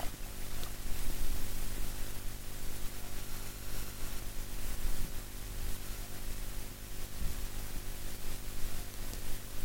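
Steady electrical hum and hiss from a faulty microphone, drowning out any other sound.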